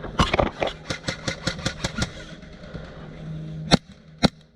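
Airsoft gun firing a rapid string of shots, about seven a second for two seconds, then three single shots spaced about half a second apart near the end.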